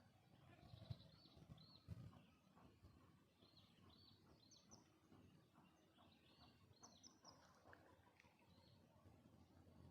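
Faint outdoor ambience with a small bird calling: short arched chirps, repeated in quick runs. There are a couple of low thumps in the first two seconds.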